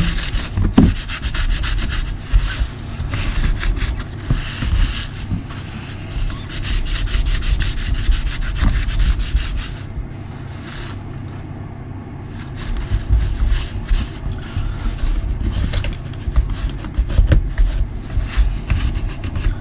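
Repeated rubbing and scrubbing strokes as mud loosened by degreaser spray is wiped off the underside of a Kyosho MP10 nitro RC buggy chassis, easing off briefly about halfway through.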